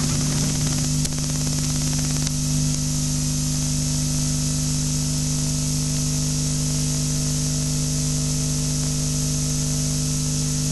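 Steady hiss with a constant low electrical hum, the background noise of an old analog film or tape recording.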